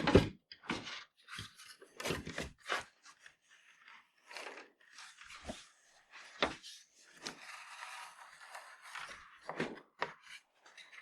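Scattered light knocks and clicks with a few short scrapes, like tools and wood being handled on a bench.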